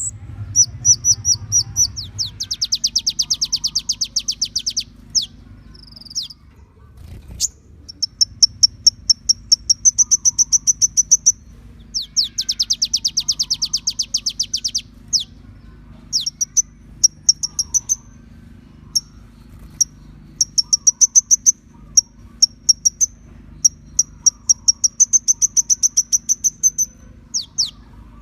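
A kolibri ninja sunbird singing: fast, high trills of sharp repeated notes in phrases of two to three seconds, with short downward-sweeping chips between phrases, over a faint low steady hum.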